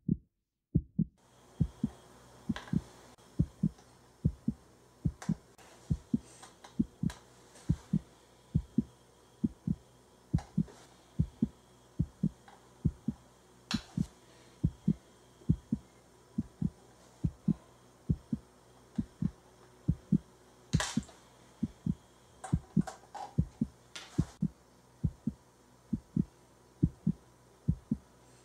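Heartbeat sound effect: steady low thumps, about two a second. Now and then there is a faint click of chess pieces being set down on a board.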